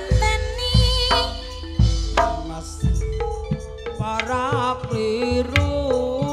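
Javanese gamelan playing a gending: deep hand-drum strokes from the kendang over sustained pitched tones. From about four seconds in, a wavering high melodic line joins.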